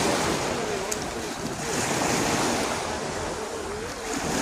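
Sea waves washing onto the shore, the surf swelling and easing in repeated rushes.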